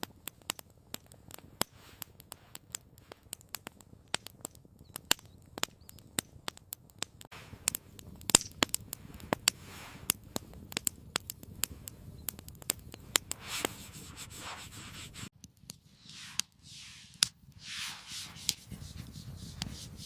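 Campfire crackling: irregular sharp pops and snaps of burning wood, with a few soft rushing swells in the last few seconds.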